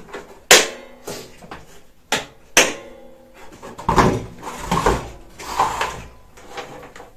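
Handling clatter as the plastic motor head of an Einhell TC-VC 1820 S wet/dry vacuum is seated on its stainless steel drum and latched, with three sharp clicks in the first three seconds and a stretch of knocking and rattling later on. The motor is not running.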